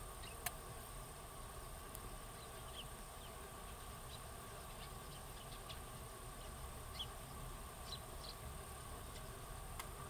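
Eurasian tree sparrows feeding, giving scattered short, high chirps over a steady insect drone. A single sharp click sounds about half a second in.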